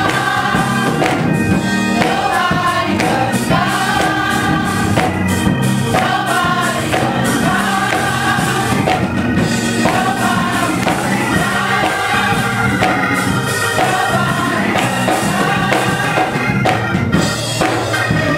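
Children and a church congregation singing a gospel song together, with hand-clapping in time.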